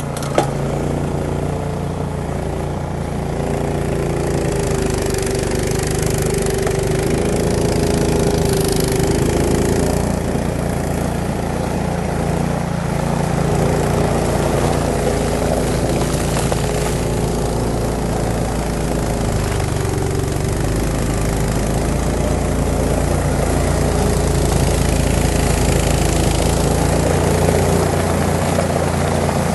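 Cub Cadet XS3 76 SWE three-stage snowblower's 420 cc OHV petrol engine running steadily under load as its augers chew through wet, slushy snow and throw it out the chute. The engine note shifts a little as the load changes.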